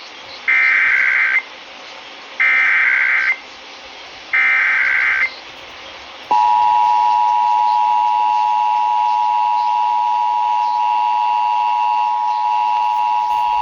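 Three EAS SAME header data bursts, each a harsh warbling digital screech about a second long, with a short gap between each. About a second after the last burst, the steady two-tone EAS attention signal (853 and 960 Hz) starts and holds. This is the opening of an Emergency Alert System Required Monthly Test.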